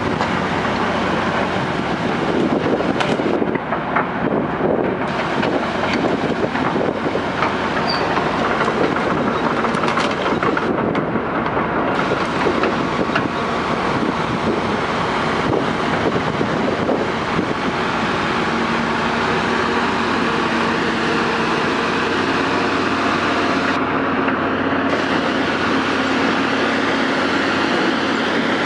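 Heavy diesel earthmoving machines, a crawler excavator and a John Deere 450H dozer, running hard under load, with steel crawler tracks clanking and metal knocking throughout.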